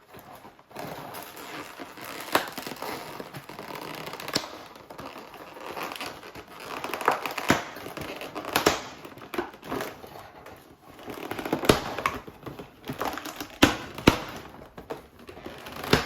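Packaging being opened by hand: continuous crinkling and rustling broken by many sharp snaps and clicks.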